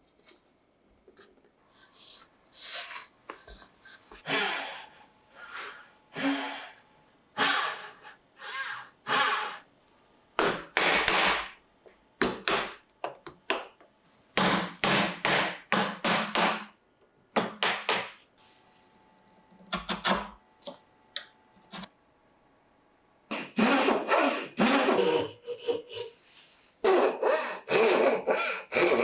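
A Japanese hand tool working wood in repeated rasping strokes. The strokes come in runs of several with short pauses between them, and the densest runs come near the end.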